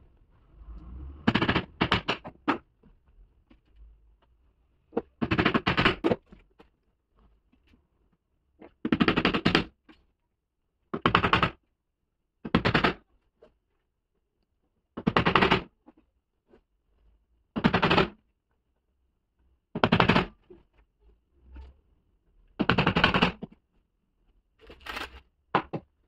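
Hammer tapping the nails of plastic cable clips into a wooden board, in about a dozen quick flurries of strikes, each lasting about a second, with short pauses between them as each wire is clipped down.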